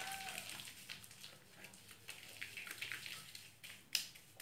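Wet hands massaging a lathered foaming face cleanser over the skin: faint, irregular soft crackles and rubbing, with one sharper click near the end.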